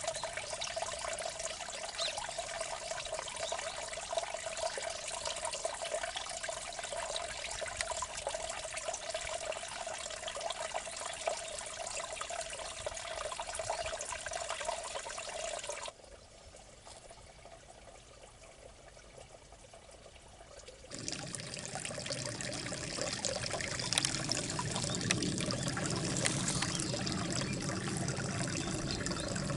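Water trickling and flowing in a small irrigation channel, a steady running sound. About halfway through it drops suddenly to a fainter trickle. About five seconds later it comes back louder and fuller.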